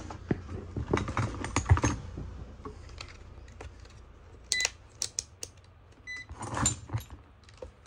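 Irregular light clicks and taps of small hand tools at an electronics repair bench, over a steady low hum.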